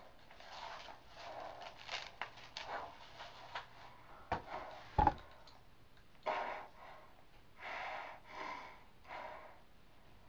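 A person breathing hard in short, noisy breaths close to the microphone, with a few sharp knocks, the loudest about five seconds in.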